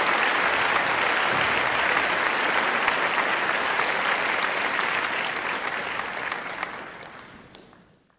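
Crowd applauding, a dense patter of clapping that fades out near the end.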